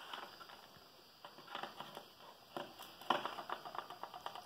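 Maned wolf eating from a metal tray: irregular bursts of crunching and clicking, the strongest about three seconds in.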